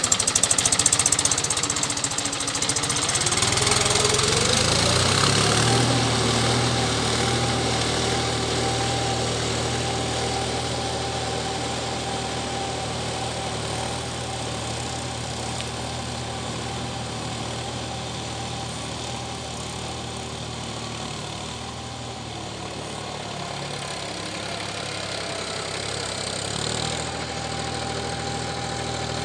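Mahindra 275 DI SP Plus tractor's three-cylinder diesel engine running under load while puddling a flooded paddy field, with water and mud splashing at first. The engine note climbs about three seconds in, then holds steady and slowly grows quieter as the tractor moves off.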